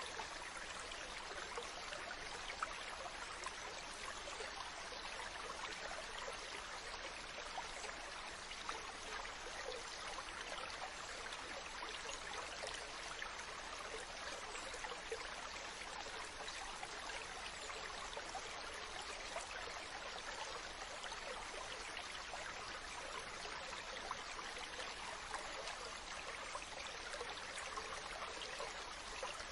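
Steady running water: an even rush with scattered small ticks, unchanging throughout.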